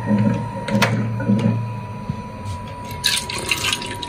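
Water poured from a small steel cup into a steel bowl of eggs, splashing, starting about three seconds in. Before it, a single knock about a second in, over a faint steady high-pitched tone.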